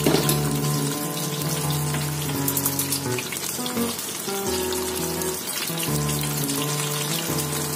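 A cassava-flour-coated pompano frying in shallow oil in a pan: a steady sizzling hiss. Background music with held chords plays under it.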